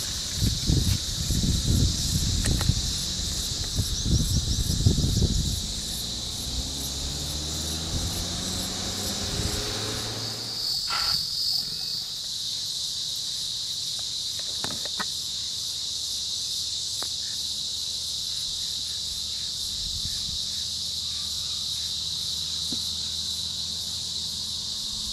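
Steady high-pitched insect chorus from the roadside scrub. In the first five seconds it is joined by low rumbling buffets, and then a vehicle engine rises in pitch for a few seconds before fading. After that only the insects and a faint low hum remain.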